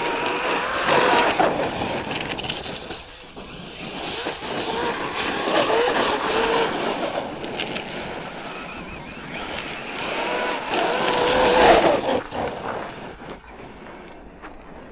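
Traxxas Maxx V2 RC monster truck's brushless motor and drivetrain whining, rising and falling in pitch as it accelerates and slows in three surges, over the hiss and crunch of tyres on loose gravel. It is loudest about eleven seconds in, then fades away as the truck moves off.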